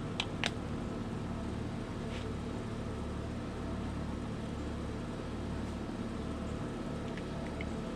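Steady low background hum, throbbing slightly, with a couple of faint clicks about half a second in and a few more near the end.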